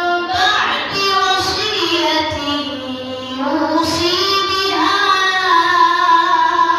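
A girl's voice reciting the Quran in a melodic chant into a microphone: long, ornamented phrases with drawn-out notes, the last held from about halfway in until just after the end.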